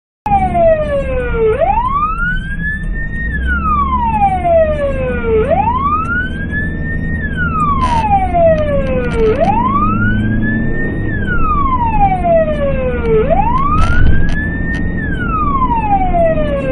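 Emergency vehicle siren wailing: a slow rise and fall in pitch, repeating about every four seconds, over the low rumble of road traffic.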